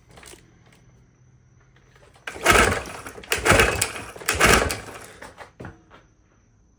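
Recoil starter rope of a 1969 Johnson 9.5 hp outboard pulled three times about a second apart, spinning the engine over to check the bottom cylinder for spark, which it lacks.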